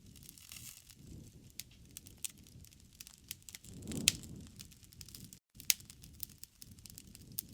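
Wood fire crackling in a fireplace: irregular sharp pops and snaps over a soft low rumble, with one louder pop about four seconds in. The sound cuts out for a split second just after five seconds.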